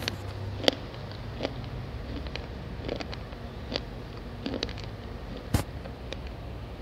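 Sharp, irregular crunches of brittle chalky clay being bitten and chewed, roughly one a second, the loudest about five and a half seconds in, over a low steady hum.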